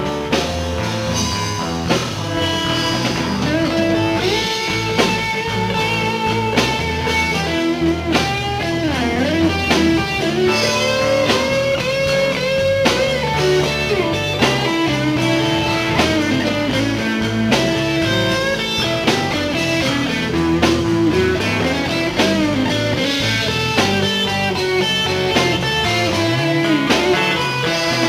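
Live blues-rock band playing an instrumental break after a sung verse, with electric guitar out in front over the rhythm section.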